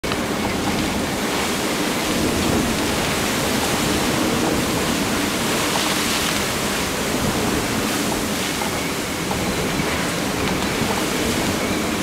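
Steady rush of wind and water as a 63-foot sailing yacht drives hard through rough seas, its bow cutting through the waves and throwing spray. The rush swells briefly about halfway through.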